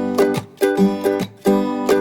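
Background music: a ukulele or guitar strumming chords in a bouncy rhythm.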